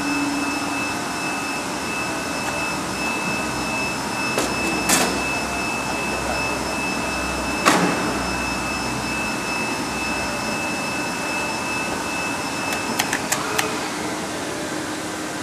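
Datien CT-300E guillotine paper cutting machine running: a steady machine hum with a thin high whine over it, broken by a few sharp clicks and knocks as sheets are handled on its table, and a sudden knock at the very end.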